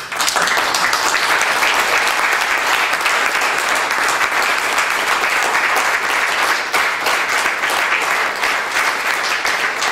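Crowd applauding, starting suddenly and holding steady, with many separate claps heard through it.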